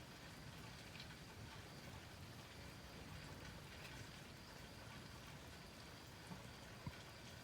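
Near silence: a faint, steady outdoor hiss with a few soft ticks.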